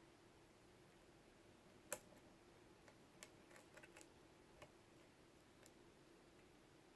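Near silence broken by a few faint, scattered clicks of a hook pick working the pin tumblers inside a Lockwood padlock, with one sharper click about two seconds in.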